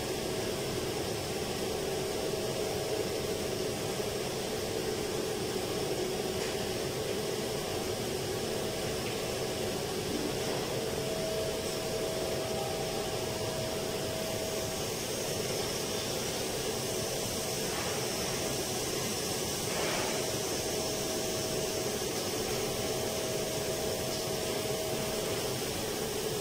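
Steady hum and air rush of air-handling and ventilation machinery, with a faint steady whine running through it.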